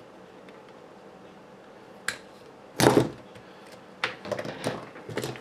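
Small hard kit parts and hand tools being handled on a workbench: a sharp click about two seconds in, a louder clatter just before three seconds, then a string of light clicks and taps near the end.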